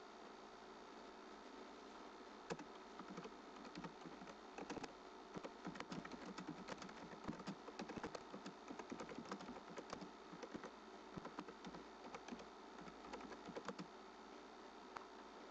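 Computer keyboard typing: a run of quick, irregular key clicks that starts a couple of seconds in and stops near the end, over a faint steady hum.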